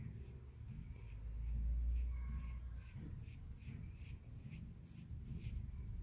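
Fingers rolling and squeezing white stuffing around a thin metal wire: a soft, irregular scratchy rubbing, with a low rumble of handling that swells about two seconds in.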